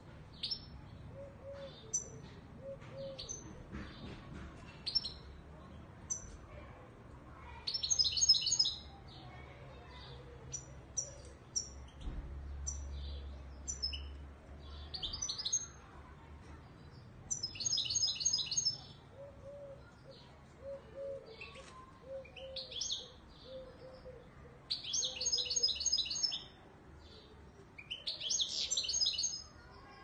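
Caged Moroccan Widani goldfinch singing: about five bursts of rapid, high twittering song of a second or two each, the loudest near the end, with single chirps scattered between them.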